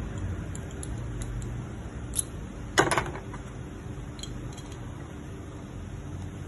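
Small metal magazine parts clicking and clinking as they are handled, with a sharp click a little past two seconds in and a louder pair of clacks just after, over a steady low hum.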